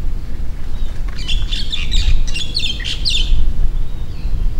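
A bird sings a quick run of high chirps for about two seconds, starting about a second in, over a steady low rumble.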